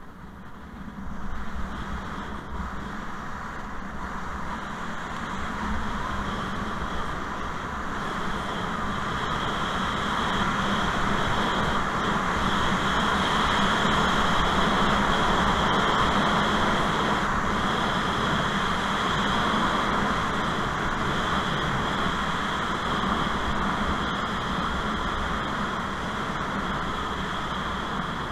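Wind rushing over an action camera's microphone together with skis hissing on packed snow during a fast downhill ski run. A steady rushing noise that builds over the first ten seconds or so and eases a little near the end.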